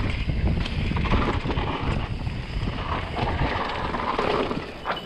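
Wind buffeting the microphone of a camera on a moving mountain bike, over the rumble of tyres on a dirt trail and light rattles and clicks from the bike.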